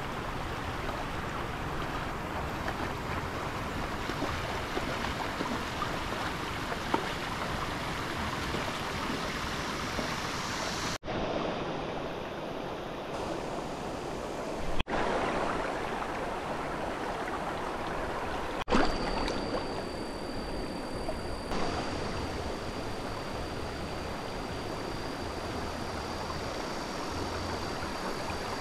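Steady rush of flowing stream water, breaking off abruptly for an instant three times as the footage jumps. A faint, steady high tone runs through the last third.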